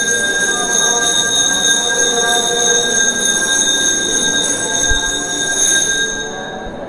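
A temple bell rung continuously, giving a steady high ringing of several tones that fades near the end.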